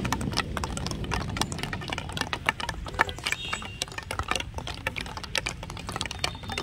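Many field hockey sticks tapping balls in dribbling drills: a rapid, irregular clatter of small clicks and knocks.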